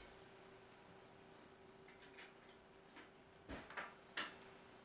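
Near-quiet room with about five light, hard clicks and taps from about two seconds in: the plastic toys of a baby activity gym knocking as a cat paws at them.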